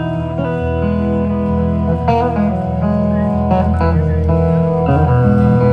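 Live band playing: sustained electric guitar notes over bass and drums.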